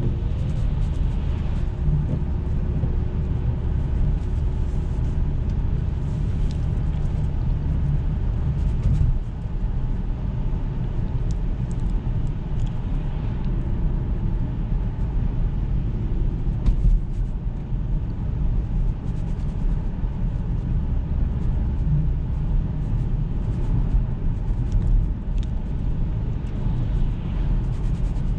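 Jaguar XF 2.7 V6 diesel car being driven, a steady low rumble of engine and road noise throughout.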